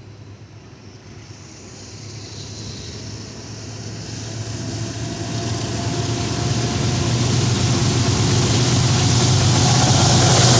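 Loaded coal train led by two Norfolk Southern diesel locomotives approaching: a low engine drone with rumbling wheel-on-rail noise, growing steadily louder as it nears.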